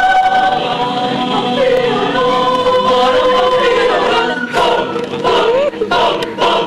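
A group of girls singing together, holding long notes. A few sharp knocks come in the last two seconds.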